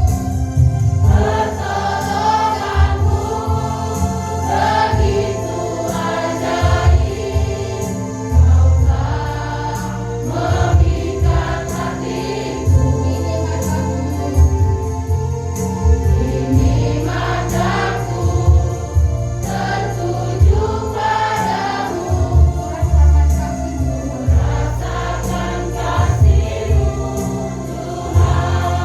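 A choir singing a Christian worship song with instrumental accompaniment and a steady bass line.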